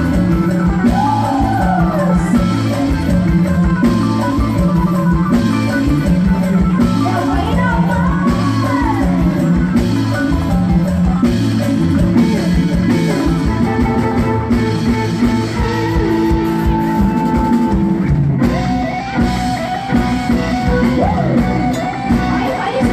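Live band music with a steady beat from drum kit and bass, and a sliding electric-guitar-like melody over it; the beat thins briefly about two-thirds of the way through.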